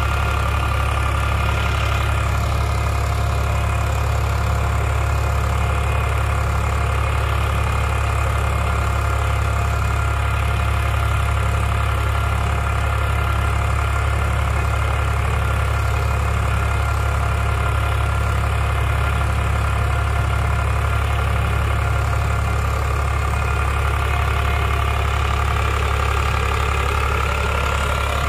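Eicher 551 tractor's three-cylinder diesel engine running steadily under load, driving a rotary tiller that churns through the soil.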